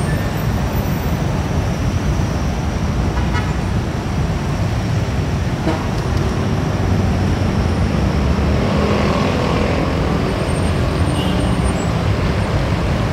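Steady road-traffic noise from a busy roundabout: cars, jeepneys, vans and motorcycles going by in a continuous wash of engine and tyre noise.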